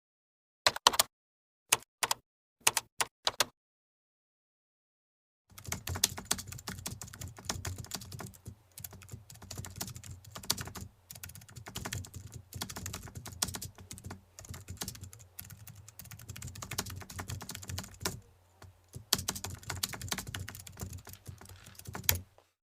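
Typing on a computer keyboard: a handful of separate keystrokes, a pause of about two seconds, then fast continuous typing with a brief break near the end.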